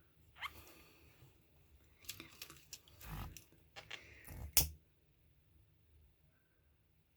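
Small hard objects being handled and scraped on a work surface: a short squeak, then a run of clicks and scrapes ending in a sharper knock.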